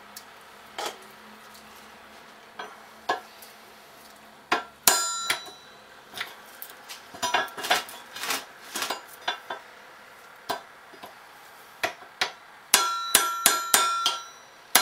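Hammer blows on a steel drift, knocking the rear bearing off a Lucas ACR alternator rotor's shaft resting across two steel beams. Sharp metallic strikes that ring, scattered light taps at first, then a quick run of heavier ringing blows near the end.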